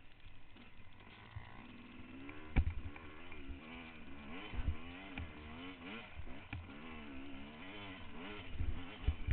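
Trail motorcycle engine running with the revs rising and falling in quick waves as it is ridden along a rough lane. Low thumps and knocks sound throughout, with one sharp knock about two and a half seconds in.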